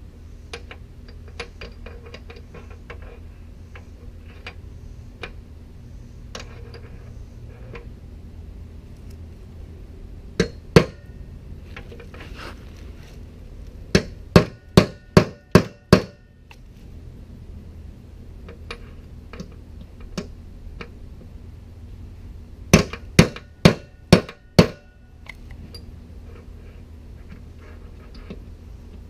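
Hammer driving a steel punch to knock the worn bearings out of a Hustler Raptor SDX mower deck spindle housing: two blows, then two quick runs of about six metallic strikes each with a short ring after them, between lighter clicks as the punch is set in the bore.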